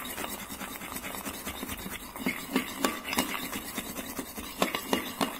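Metal spoon stirring and thinning yogurt in a ceramic bowl: repeated scraping with irregular light clinks of the spoon against the bowl.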